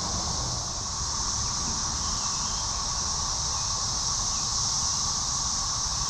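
Dense chorus of Brood XIX 13-year periodic cicadas in the trees: a steady, high-pitched droning whine that never lets up, over a low rumble.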